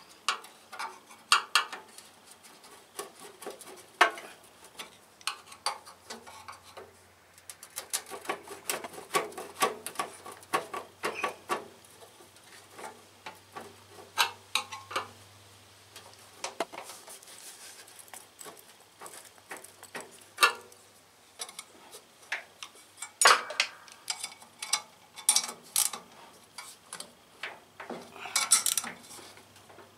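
Metal hand tools and small parts clinking and clicking against a small engine's sheet-metal shroud and flywheel screen, in irregular taps and knocks with short pauses.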